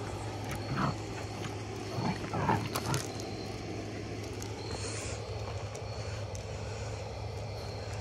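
Puppies growling in play, a few short growls about a second in and again between two and three seconds in, over a steady low hum.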